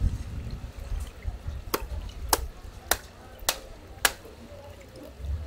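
Broad knife chopping through the head and bones of a large brown croaker (Miichthys miiuy) onto a cutting board: five sharp chops a little over half a second apart, starting a bit before halfway, after low handling noise.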